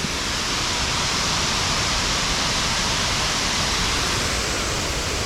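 Waterfall roaring in a steady, even rush of falling water.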